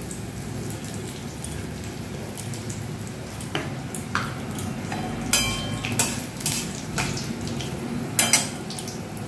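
Cumin, bay leaves, green chillies and asafoetida sizzling steadily in hot oil in a metal kadai. From about three and a half seconds in, a metal spatula scrapes and knocks against the pan several times as the spices are stirred. The sharpest strokes come at about five and a half and eight seconds.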